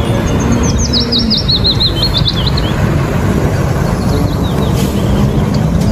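Car-carrier truck's engine and tyres making a steady low rumble as it drives past. A bird sings a quick run of high chirps over it, from about half a second to nearly three seconds in.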